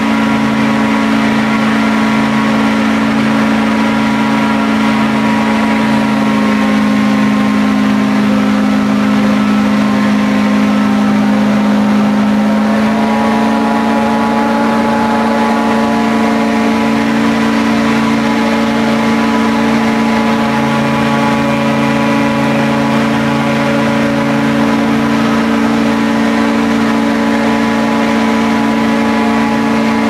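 Airboat running at speed across the marsh: the engine and propeller make a loud, steady drone. Its pitch shifts a little about twelve seconds in.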